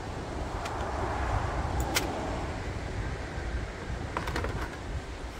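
Steady rush of a fast-flowing river with wind buffeting the microphone, swelling louder during the first two seconds. A few sharp clinks and clicks of dishes and utensils come at the table, one about two seconds in and a short cluster around four seconds in.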